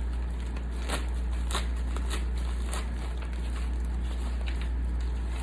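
Packaging crinkling and crackling in the hands as a makeup bag is unwrapped: a scatter of short, irregular crackles over a steady low hum.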